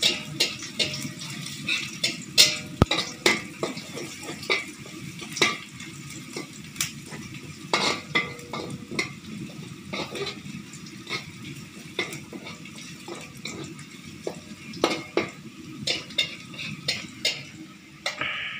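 Metal spatula scraping and clinking against a wok while sliced shallots and garlic are stir-fried in oil until fragrant, with a steady frying sizzle underneath. The spatula strikes come irregularly, two or three a second.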